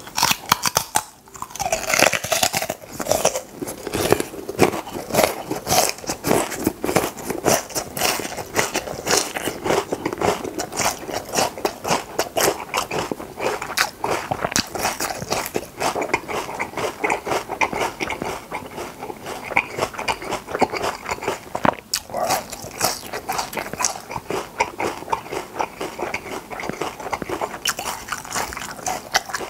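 Raw lotus root being bitten and chewed up close, a dense run of crisp, wet crunches.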